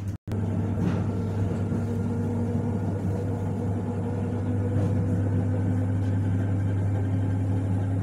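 ER9M electric train car running between stations, heard from inside the passenger saloon: a steady low hum with some higher steady tones over the rumble of the moving train. The sound drops out for a split second just after the start.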